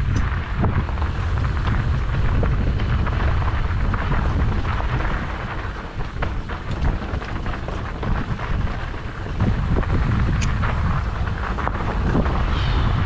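Wind buffeting the camera microphone on a mountain bike descending a dry, stony dirt trail, with tyres crunching over loose stones and the bike rattling and clicking over bumps. A brief high squeal near the end.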